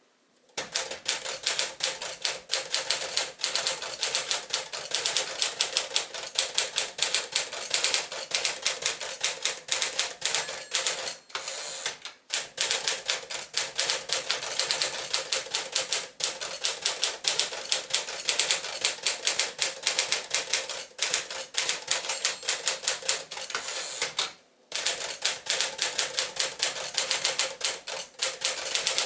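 1958 Tower Challenger manual typewriter, a Smith-Corona Clipper mechanism, being typed on at a brisk pace: a rapid, uneven run of key clacks. It starts about half a second in, with a brief lull near the middle and a short silent break a few seconds before the end.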